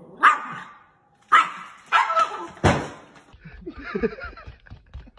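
Small Yorkshire terrier barking sharply, four barks in about three seconds, then quieter sounds.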